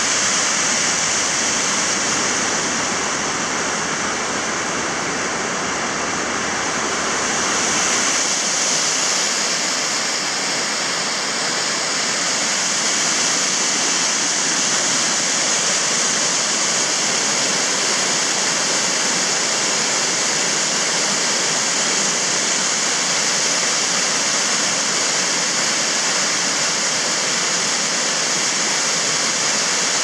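Waterfall cascading over rock ledges: a steady, loud rush of white water.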